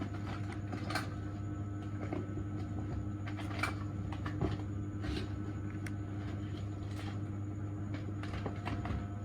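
Dental treatment in progress: a steady equipment hum with scattered light clicks and taps of instruments.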